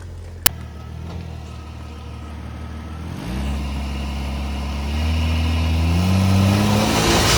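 2001 Jeep Cherokee XJ engine running at low revs, then rising in pitch as it accelerates from about three seconds in and again toward the end, where it is loudest. A single sharp click about half a second in.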